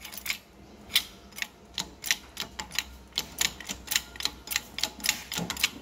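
Hydraulic shop press being pumped by its bottle-jack handle to press an old bushing out of a link arm: a run of light sharp clicks, about three a second, at uneven spacing.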